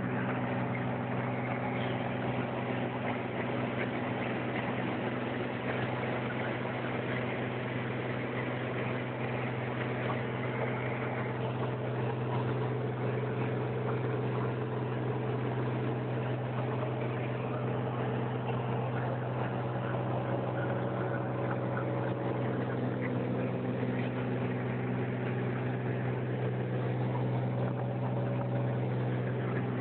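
Cirrus SR22's six-cylinder piston engine and propeller heard from inside the cockpit, a steady unchanging drone at cruise power of about 2500 rpm.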